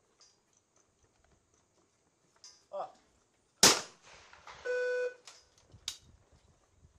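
A short voice call, then a single loud shotgun shot from an over-and-under trap gun, with a ringing tail. An electronic beep of about half a second follows, and a fainter sharp crack comes about two seconds after the shot.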